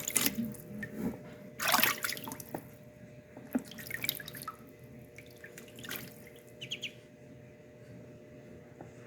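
Water splashing and dripping as a Muscovy duckling paddles in shallow water, in a few short bursts over the first seven seconds before it settles.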